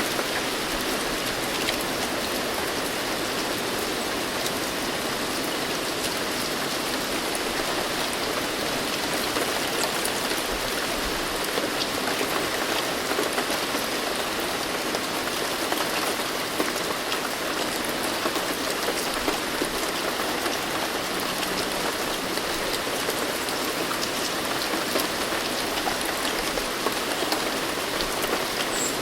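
Steady rain falling, an even hiss dotted with many small drop impacts.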